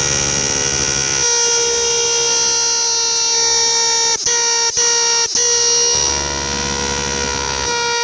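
Cicada singing: a loud, steady, pitched buzz, broken by three very short gaps about halfway through.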